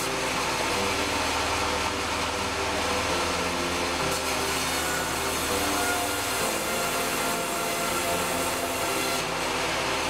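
Sawmill bandsaw running steadily and cutting timber boards as they are fed through.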